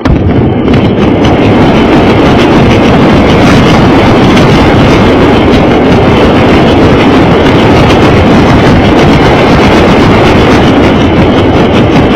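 Lego train running on its track, heard very close and loud from a camera riding on the train: a steady motor-and-wheel rattle with a fine clatter of clicks. It starts abruptly at the outset and does not let up.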